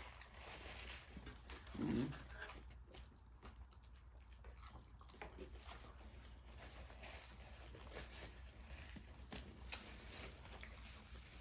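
Quiet eating at a table: soft chewing and handling of paper food wrappers. A short low vocal sound comes about two seconds in, and a sharp tick near the end.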